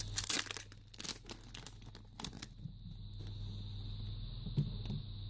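Trading-card pack wrapper being torn open and crinkled by hand, a run of sharp crackles over the first two seconds or so, then quiet apart from faint handling of the cards.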